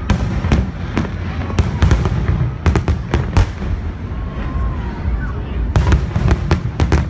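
Fireworks display: a rapid series of sharp bangs from aerial shells bursting, coming in clusters about a third of the way in and again near the end, over a continuous low rumble.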